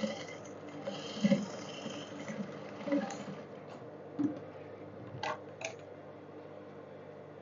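Soft handling sounds as the trousers are worked on: a few dull thumps, then two light clicks a third of a second apart, over a steady low hum.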